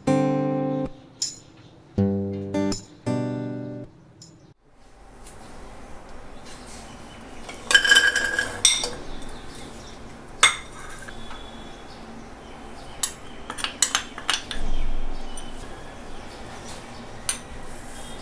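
Acoustic guitar music, strummed and plucked, stops about four seconds in. Then come scattered clinks and clicks of a metal spoon and glass bowls against a pressure cooker pan as ingredients are added. The loudest clink, about eight seconds in, rings briefly, and a low steady background hiss runs throughout.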